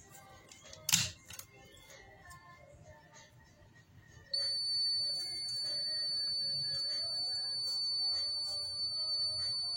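A sharp click, then about four seconds in a steady high-pitched electronic beep switches on and holds without a break, over faint background music.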